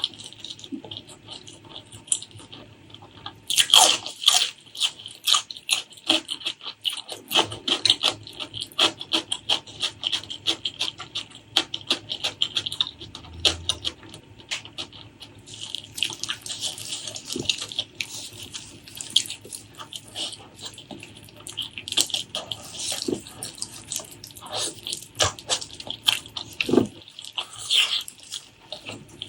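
Close-miked wet chewing and lip-smacking while eating spicy pork leg curry with rice: a dense, uneven run of sticky clicks and smacks, loudest about four seconds in.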